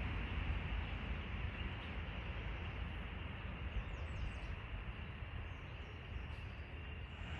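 Wind buffeting the microphone: a steady, gusty low rumble with hiss. There are faint high chirps about four seconds in.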